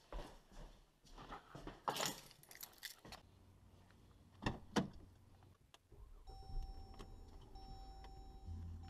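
Footsteps and keys jangling, then two sharp clicks of a Dodge's door handle and latch as the door is opened. After that comes the car's steady electronic warning tone, broken once briefly, over a low hum.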